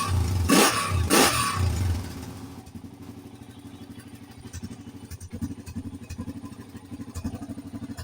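Honda 400EX ATV's single-cylinder four-stroke engine blipped twice on the throttle, then dropping to a steady idle, its carburetor and throttle cable freshly adjusted so it no longer runs high.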